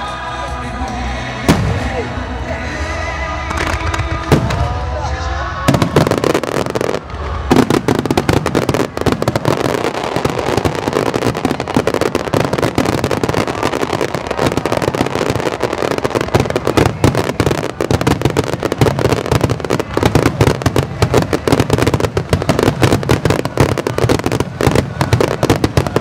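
Aerial fireworks display: for the first several seconds a few sharp bangs sound over music. Then, about seven seconds in, a dense, rapid barrage of bursts and crackling takes over.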